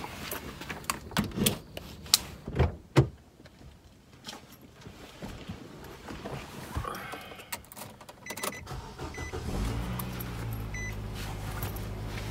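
Several sharp clunks and knocks of someone getting into a car, then about ten seconds in a car engine starts and settles into a steady low idle hum, with a few faint short beeps.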